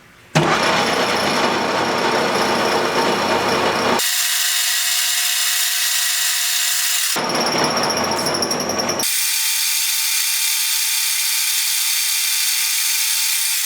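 Small lathe spinning a steel motorcycle engine mount bolt while a Scotch-Brite pad polishes it: a steady, even rush of abrasive scrubbing over the motor's running noise. The sound cuts abruptly about four, seven and nine seconds in, and the stretches after the first and third cuts carry a steady whine.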